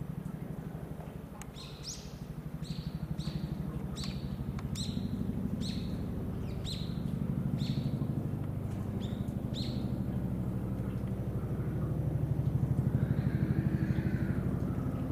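Low engine rumble of a vehicle running nearby, growing louder around the middle and again near the end. Over it, a bird gives a string of short, high, falling chirps through the first ten seconds or so.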